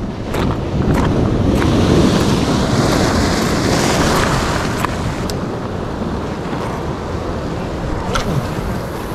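Ocean swell surging against the rock ledge and washing off, building over the first two seconds and easing after about five, with wind on the microphone. A few sharp clicks are scattered through it.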